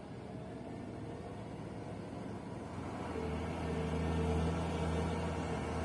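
Heavy tanker truck's diesel engine pulling steadily as the truck comes closer, growing louder. Its low, even engine hum becomes clear about three seconds in and is loudest a second or two later.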